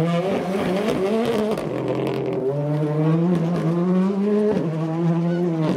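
Rally car engine accelerating hard out of a gravel corner at full throttle, its pitch climbing and dropping back with each quick upshift, with a few sharp crackles about two seconds in.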